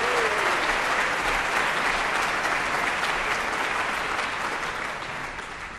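Audience applauding, the clapping thinning and fading away towards the end.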